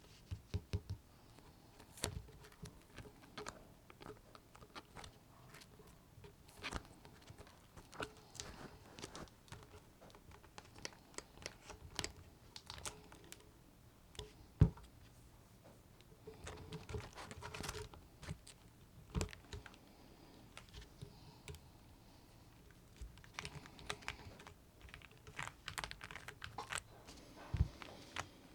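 Typing on a Monsgeek M1 V5 mechanical keyboard: irregular key clacks in uneven runs, with one much louder knock about halfway through.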